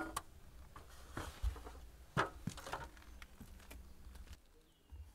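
Footsteps and a few light knocks on a concrete walk, with low rumble from a handheld camera being carried, which drops away about four seconds in.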